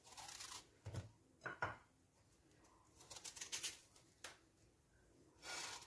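Kitchen knife peeling and cutting an apple: faint, intermittent scraping and slicing sounds with a few light clicks.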